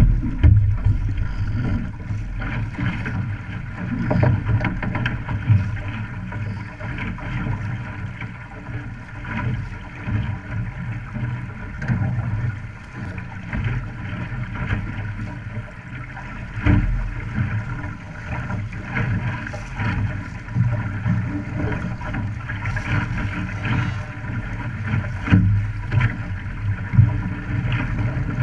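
Water rushing and splashing along the hull of an OK Dinghy under sail, mixed with wind buffeting the microphone. It is a steady, uneven noise that rises and falls in small surges.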